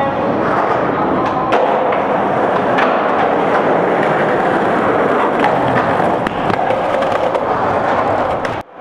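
Skateboard on concrete: a steady rolling noise from the wheels, with a few sharp clacks from the board.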